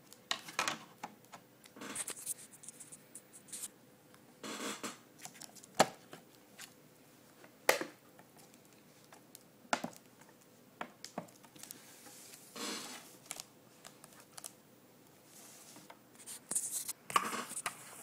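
Handling sounds from a mini PC's plastic case and its cables: irregular clicks, knocks and scrapes, with two sharp loud clicks about six and eight seconds in and a flurry of scraping near the end.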